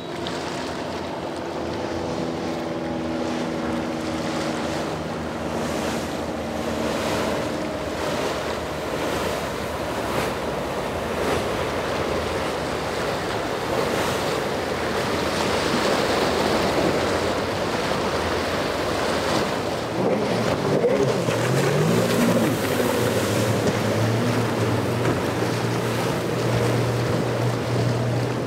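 Boat engines running over choppy, splashing water, with wind buffeting the microphone. A steady engine drone with several tones fades out over the first eight seconds; from about twenty seconds in, a small boat's outboard motor rises in pitch and then holds a steady note.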